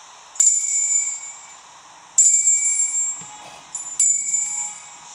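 Altar bell rung three times with ringing high tones that fade between strikes, sounding the elevation of the consecrated host at Mass.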